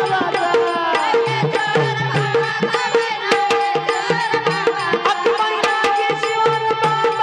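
Bhajan music: rhythmic tabla-style hand-drum strokes over held steady melody tones, with some gliding melodic lines in the first second or so.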